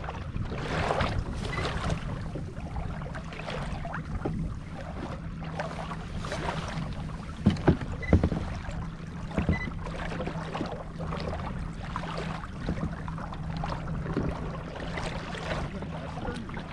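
Water lapping against a sit-on fishing kayak with wind on the microphone, under a steady low hum. A few sharp knocks come just before the middle, as the rod is cast.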